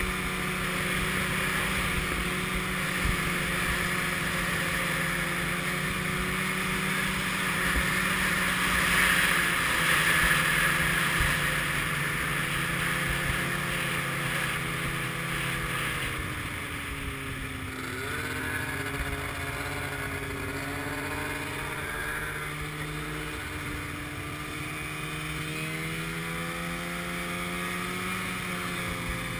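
Snowmobile engine running under way across snow, a steady drone with a hiss over it that grows louder for a few seconds about a third of the way in. In the second half the engine pitch dips and rises a few times as the throttle eases and opens again.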